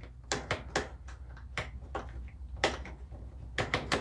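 Scattered sharp clicks and light taps on an old, worn-out table saw, over a steady low hum; the saw's motor is failing to start.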